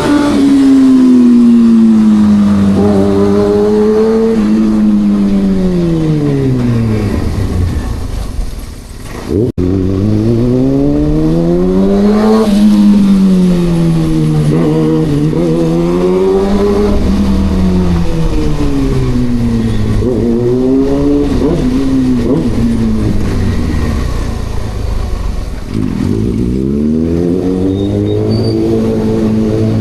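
Kawasaki ZX-6R's inline-four engine under way, its note falling and rising in long sweeps as the rider rolls off and gets back on the throttle through the gears. There is a brief sharp break about a third of the way in.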